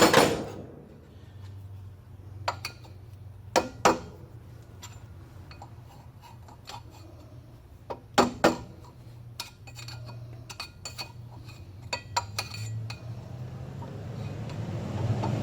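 Metal hand tools clinking and clanking against each other and against metal as they are handled and set down: a scattering of sharp separate knocks, the loudest in pairs about four and eight seconds in.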